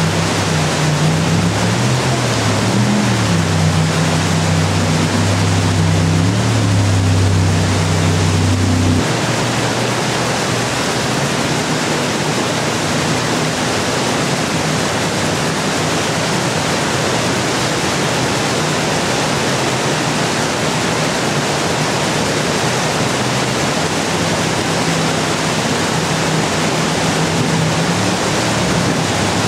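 Steady rush of whitewater rapids, with a jet boat's engine droning low beneath it, its pitch rising and falling as the boat works the waves. The engine sound cuts off suddenly about nine seconds in, leaving only the water, and comes back faintly near the end.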